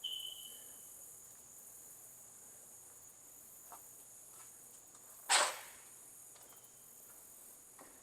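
Crickets or similar insects chirring in one steady, high, even tone. There is a short, fading high note right at the start and a single sharp knock about five seconds in.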